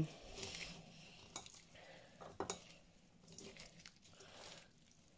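Faint wet squishing of a hand mixing raw prawns with a spice and onion marinade in a stainless-steel colander, with a few light clicks.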